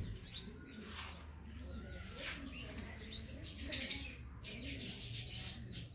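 Scissors snipping through a black francolin's wing feathers, several short crisp cuts mixed with feather rustling, while birds give short chirps.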